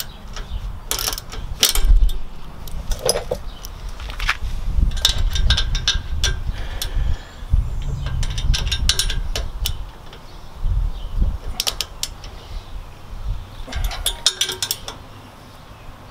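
Hand ratchet clicking in short runs of rapid ratchet clicks as bolts are snugged tight, with a low rumble underneath.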